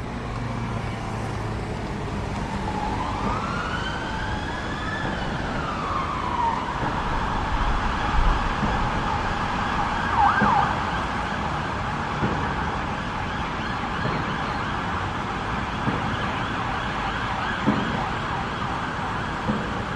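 Emergency-vehicle siren sounding over street traffic: a slow wail rising and falling in pitch, then changing about six seconds in to a rapid, steady warble that carries on to the end.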